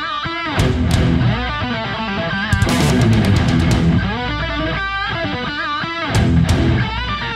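Loud rock music led by electric guitar.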